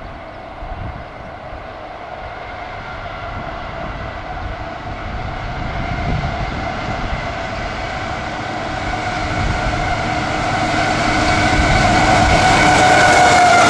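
CSX double-stack freight train approaching behind diesel locomotives, growing steadily louder, with a whine of several steady tones over the engine rumble. The whine dips slightly in pitch near the end as the lead locomotive draws close.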